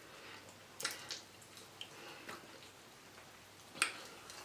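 Faint mouth sounds of someone chewing food, with a few short, soft clicks: about a second in, a little past two seconds, and near the end.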